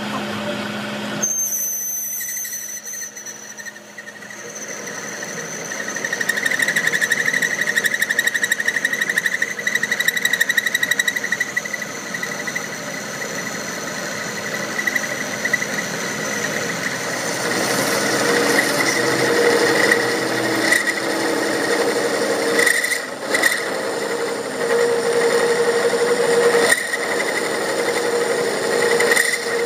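A metalworking machine running and cutting metal: a steady whine over a rasping scrape, getting louder about five seconds in.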